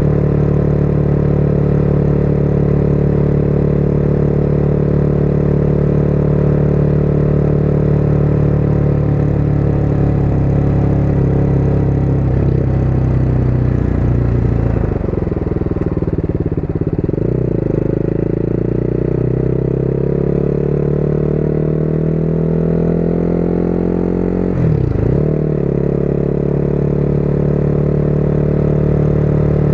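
Motorcycle engine running under way at a steady speed. About halfway through the revs drop, then climb steadily for several seconds as the bike accelerates, broken by a brief sharp dip from a gear change near the end.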